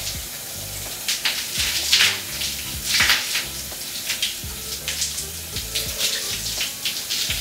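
Shower water running and splashing as shampoo lather is rinsed out of long wet hair, with uneven splashes over a steady hiss.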